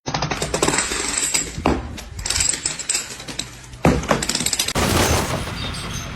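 Loud, continuous clattering and rattling of hard objects, with heavier crashes about a second and a half in and again near four seconds.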